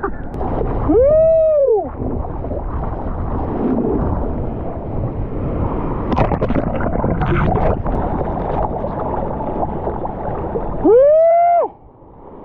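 Seawater rushing and splashing against an in-water camera in the surf, with two whooping "woo!" shouts, each one hoot that rises and falls, about a second in and again near the end. The water noise drops away abruptly just after the second shout.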